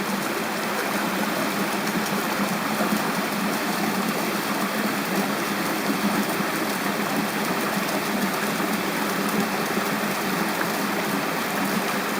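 A mountain stream rushing steadily, its water pouring over a check dam and into a plunge pool.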